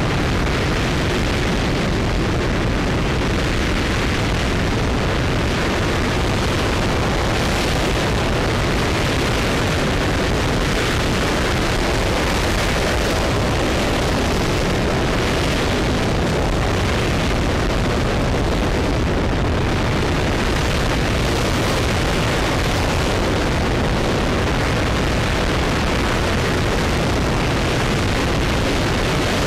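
RS-25 liquid-hydrogen/liquid-oxygen rocket engine E2063 firing at full run in a hot-fire test: a loud, steady, unbroken rushing rumble that runs from deep bass up to hiss.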